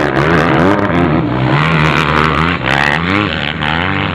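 Motocross bikes racing on a dirt track, their engines revving up and down through the corners, several at once.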